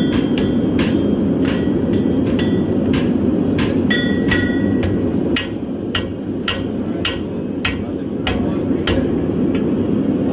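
Hand hammers striking hot steel on anvils as knife blades are forged, with uneven, overlapping blows several times a second, some leaving a short metallic ring. Underneath, a forge burner runs with a steady rushing noise that eases a little about halfway through.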